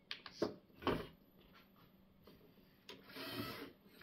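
Sharp clicks and knocks of hard LEGO plastic being handled in the first second. Near the end a LEGO motor runs for under a second as the robot arm swings round, with a gear whirr.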